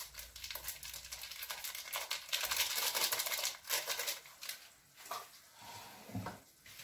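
Small paper sachet of baking powder crinkling in the hands as it is emptied and shaken out over a bowl of flour: a rapid crackle that stops about four and a half seconds in.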